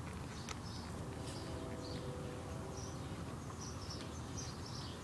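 Quiet outdoor background with short, high chirps from small animals repeating irregularly, and a couple of light clicks about half a second in.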